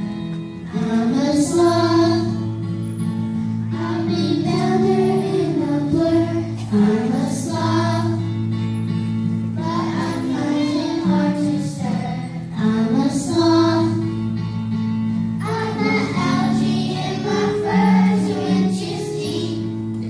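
A group of children singing a song together over musical accompaniment.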